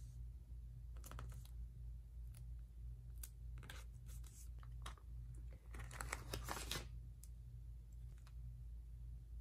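Paper sticker strips being peeled from their backing sheet and pressed and smoothed onto a planner page: scattered short peeling and paper-rustling sounds, the longest about six seconds in. A steady low hum runs underneath.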